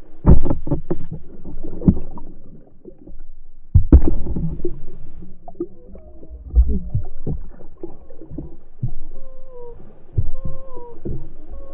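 Muffled knocks, thumps and sloshing heard underwater, irregular and strongest at the start and around four seconds in. Near the end come several short whistle-like tones.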